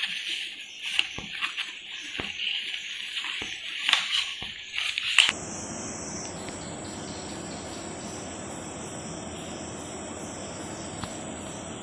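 Ground rice flour tipped from folded newspaper into a steel bowl: the paper rustles, the powder hisses as it pours, and there are several sharp taps against the bowl. About five seconds in this cuts off abruptly to a steady, even hiss with no distinct events.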